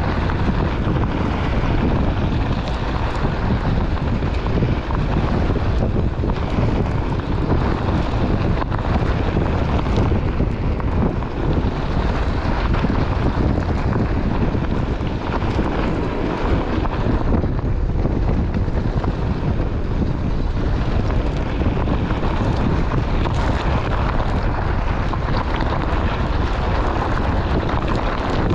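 Steady wind rushing over an action camera's microphone as a Onewheel rolls along a desert gravel trail, its tyre crunching on the gravel underneath in a constant rumble.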